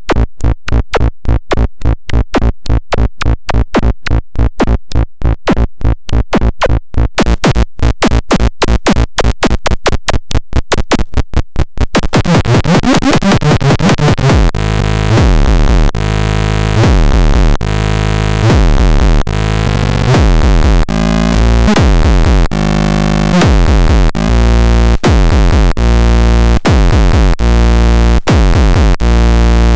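Minimal techno played from a synthesizer and drum machine production setup. A fast, even electronic pulse runs at about four beats a second. About twelve seconds in, a fuller layer comes in, with a sustained bass and repeated falling synth sweeps.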